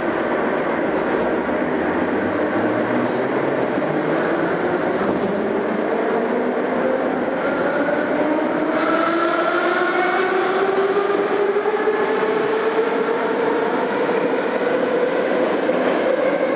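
81-717.5M Moscow metro train pulling away and accelerating: the traction motors give a whine that rises steadily in pitch over the rumble of wheels on rail.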